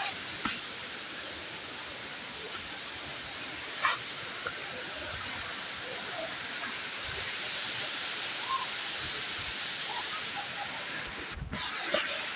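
Steady rush of a waterfall, with a few short knocks over it. The rush breaks off abruptly about a second before the end.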